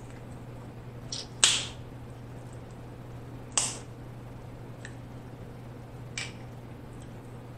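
Cooked snow crab leg shells cracked and snapped apart by hand: three sharp cracks, the loudest about a second and a half in, the others at about three and a half and six seconds, with a few small clicks between.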